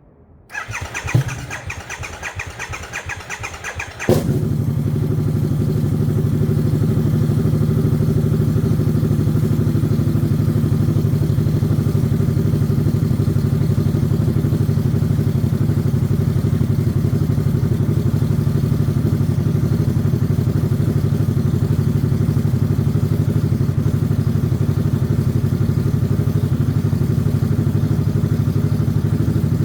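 Harley-Davidson Sportster S 1250 cc V-twin being started after its flat battery was revived. The starter cranks for about three and a half seconds, with a knock about a second in. The engine then catches and idles steadily.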